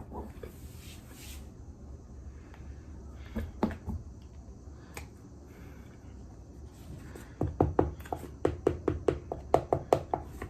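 Close-miked chewing of a large mouthful, with soft wet mouth sounds. About seven seconds in it turns into a fast run of loud, sharp squeaks, several a second, for about three seconds.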